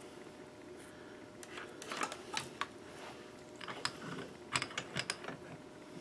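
Faint, irregular small clicks and rustles of hands handling a thin USB cable and its fine wires.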